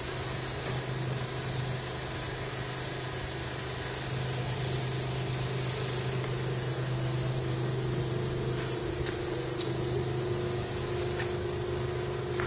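Insects buzzing in a steady high-pitched chorus over a low, steady engine hum.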